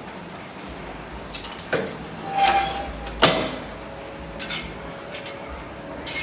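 Manual 60x40 heat press being clamped shut by its lever handle: a run of metallic clicks and clanks from the press mechanism, the loudest sharp clank about three seconds in, with lighter clicks and a brief ringing scrape around it.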